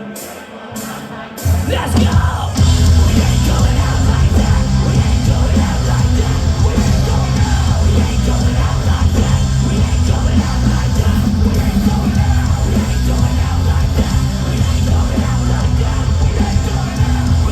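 Live heavy rock band playing loudly, the full band kicking in hard about a second and a half in after a quieter opening, with a brief rising glide as it comes in.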